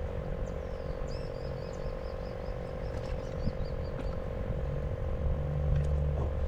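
Waterside ambience: a steady, trilling chorus of calling animals, with a bird repeating short high chirps about four or five times a second that stop about four seconds in. Low wind rumble on the microphone grows stronger near the end.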